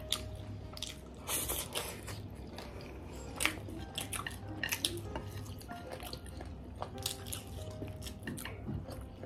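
Eating sounds: chewing and biting into chicken leg pieces and noodles, with chopsticks clicking and scraping against ceramic plates in many short, scattered taps.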